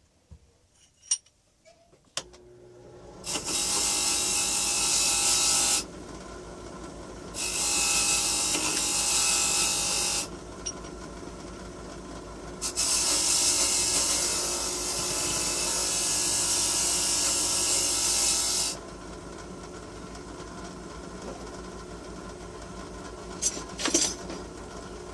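A power tool's motor starts about two seconds in and keeps running. Three times it is worked against metal for a few seconds, the last time for about six seconds, giving a loud, harsh grinding hiss each time.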